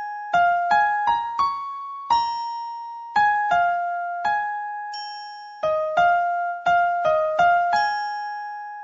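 A simple, slow melody of single keyboard notes with a piano-like tone. Each note is struck and fades, about fifteen in all, and the last one is left to ring out and die away near the end.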